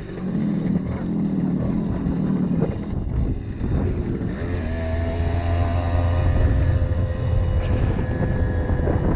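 Simson moped's two-stroke single-cylinder engine running under way, with wind rumble on the microphone. The sound changes at cuts about 3 and 4 seconds in; from about 4 seconds the engine holds a steady note at cruising speed.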